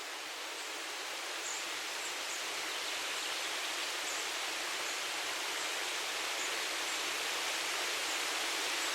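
Breeze rustling through tree leaves, a steady hiss that slowly swells, with faint high bird chirps every second or so.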